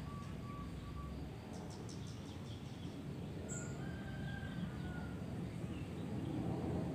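Steady low background rumble with a few faint, thin bird calls, including a short high chirp about halfway through.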